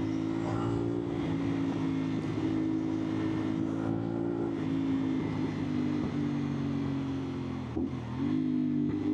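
CFMOTO 450SR parallel-twin engine running at steady revs through an aftermarket slip-on exhaust, heard from on board over rushing wind. Near the end the revs dip briefly, then pick up again.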